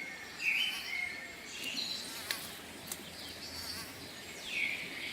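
Outdoor nature ambience: scattered short high chirps and brief gliding calls over a faint steady hiss.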